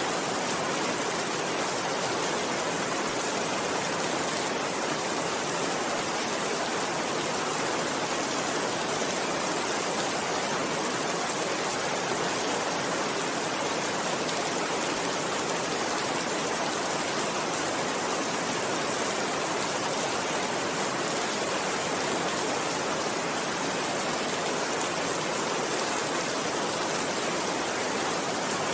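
Steady rainfall, an even hiss with no single drops or rhythm standing out.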